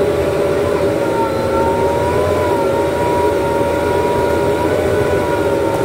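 JCB 3DX Super backhoe loader's diesel engine running steadily, with a high steady whine that wavers slightly in pitch, as the loader arm moves a heavy log.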